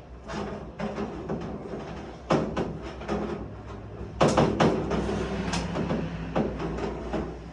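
Hand crimping pliers squeezing the end of a thin sheet-metal HVAC duct into a star crimp: a string of sharp metallic crinkles and clanks at uneven spacing, coming thickest and loudest around four to five seconds in.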